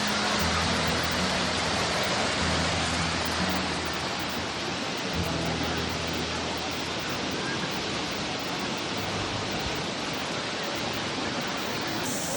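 Steady rushing of a waterfall, with faint low notes of background music underneath for the first several seconds.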